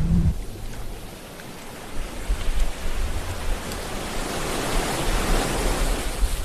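Sea waves washing on a shore, a steady hiss of surf. It eases a second or two in, then a wave builds to a louder wash near the end, with a low rumble underneath.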